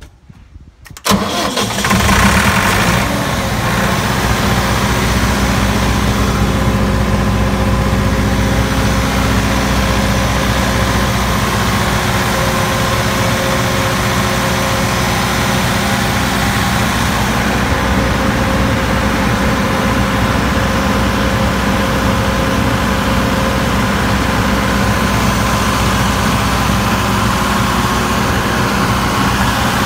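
Turbocharged Perkins diesel engine of an Olympian 60 kW generator starting about a second in, flaring up briefly and then settling into a steady, even run.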